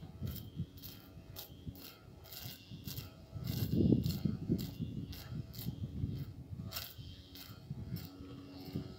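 Battery-powered pole hedge trimmer running as it cuts the tips of pigeon pea plants: a small electric motor hum with irregular clattering clicks of the cutter against the stems and leaves. A louder low rumble comes about four seconds in.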